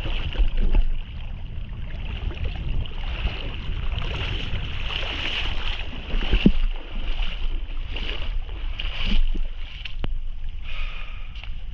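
Shallow sea water sloshing and splashing as someone wades out onto a sandy beach, with wind buffeting the microphone in a constant low rumble.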